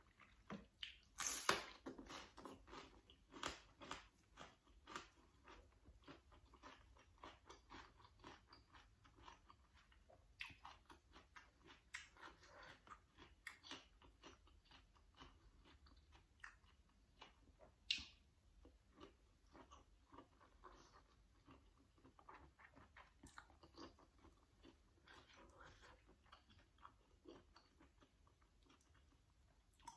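Faint close-up chewing and biting of vegetables with mackerel chili dip: many small crunches and wet mouth clicks, with a louder bite about a second in and another around eighteen seconds.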